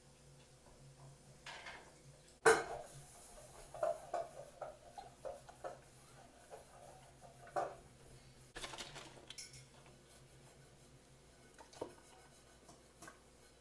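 Kitchen clatter. A sharp knock about two and a half seconds in is the loudest sound. Then come light clinks of a small saucepan and a ceramic mug as hot milk is poured, a short rustle near nine seconds, and a few soft taps near the end.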